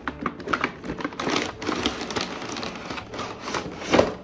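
Slime kit packaging being handled and opened: irregular crinkling and clicking of plastic and cardboard, with a louder knock about four seconds in.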